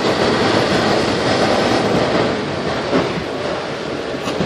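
Steady rushing noise inside a car driving through heavy rain: rain beating on the roof and windshield and tyres on the flooded road, easing slightly toward the end.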